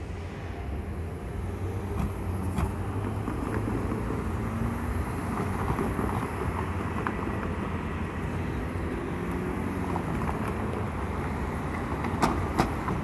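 Steady low rumble of vehicles running at a city intersection, with a few sharp clicks near the end.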